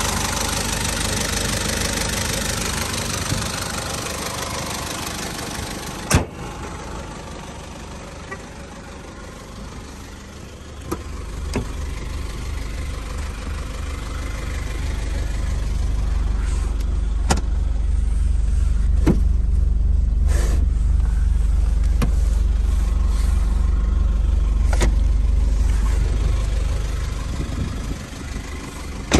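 Nissan QD32ETI turbo-diesel engine idling with a diesel knocking clatter, heard close to the engine at first. A sharp knock comes about six seconds in, after which the engine is muffled. From about eleven seconds a steady low rumble builds, broken by several sharp clicks, and it fades near the end.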